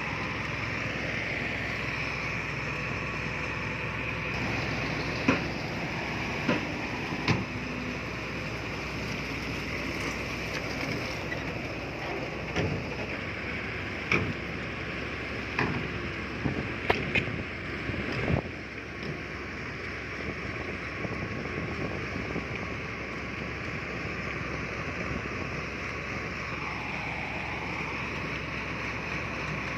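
Heavy earthmoving machinery running steadily on its diesel engine, with a series of sharp metallic clanks and knocks through the middle stretch.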